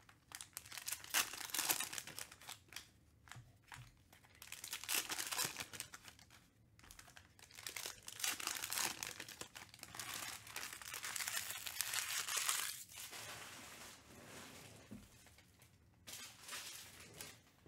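Foil wrappers of Panini Mosaic basketball card packs crinkling and tearing as the packs are ripped open, in several bursts with short pauses between.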